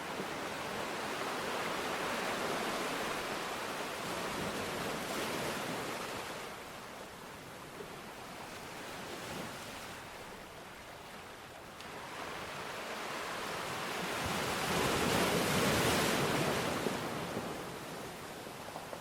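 Ocean surf breaking and washing up a shore, swelling and falling back in slow surges, with the biggest wave about fifteen seconds in.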